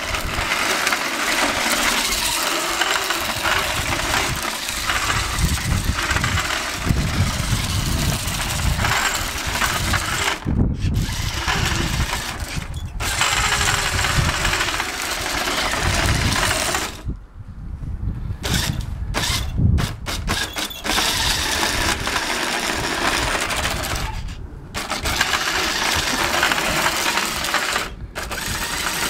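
Remote-control toy Ferrari Enzo's small electric motor and gears whirring as it drives, cutting out briefly several times as it stops and starts again. The longest stop comes about two-thirds of the way through.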